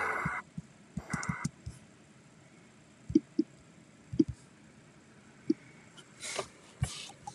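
Scattered clicks and short knocks at irregular intervals, with a brief hissing burst about a second in and two more a little after six seconds.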